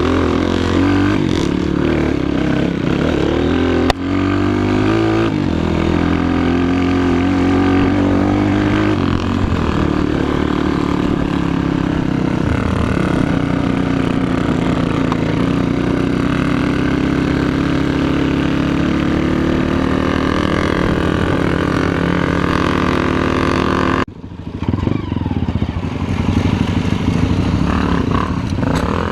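Dirt-bike engine running and revving, its pitch rising and falling with the throttle. The sound drops abruptly about 24 seconds in, then builds back up.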